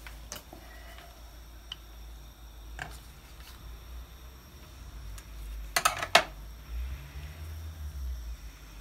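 Gloved hands handling and folding yufka pastry on a stone countertop: soft rustles and a few light taps, with a quick cluster of sharp clicks about six seconds in, over a low steady hum.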